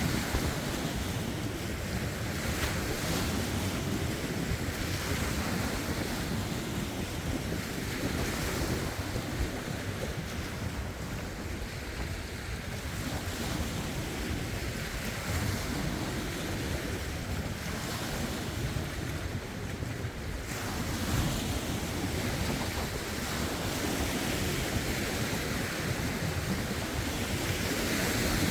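Small lake waves washing and splashing over rocks in soft, uneven swells, under a steady low rumble of wind buffeting the phone's microphone.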